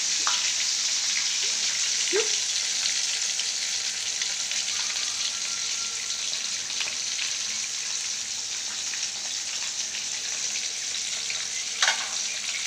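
Gurami fish frying in a wok of oil and soy-sauce seasoning, a steady sizzling hiss, with a metal spatula stirring in the pan. A sharp knock near the end.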